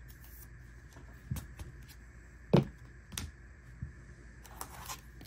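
Hands handling trading cards and a plastic card sleeve: a few sharp clicks and taps, the loudest about halfway through, with a light rustle near the end.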